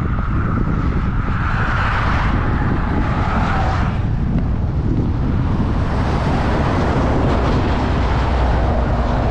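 Steady, loud wind rumble on the microphone of a moving touring bicycle, with road traffic passing; a vehicle goes by in the first few seconds.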